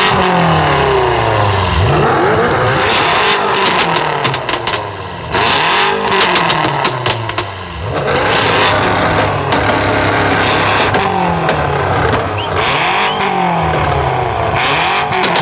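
BMW M5 F90's twin-turbo V8 through a catless, straight-piped Fi valved exhaust, revved up and down again and again. Crackles and pops sound as the revs drop.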